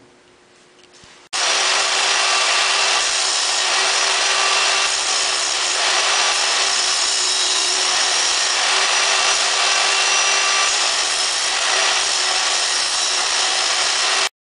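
A 9-inch angle grinder runs steadily with its abrasive wheel grinding the welded-up end of a hardened-steel snowmobile drive shaft, which turns in bearings, bringing it back down to size. It makes a constant whine over a harsh hiss. The sound starts suddenly about a second in and cuts off sharply just before the end.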